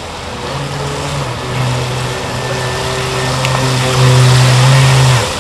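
Electric radio-controlled speed boat running fast: a steady motor hum over the hiss of water that grows louder as the boat passes close, then cuts off near the end.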